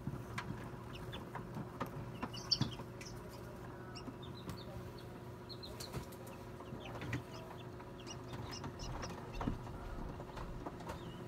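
Newly hatched chicks peeping in an incubator: many short, high cheeps scattered through, over a steady low hum.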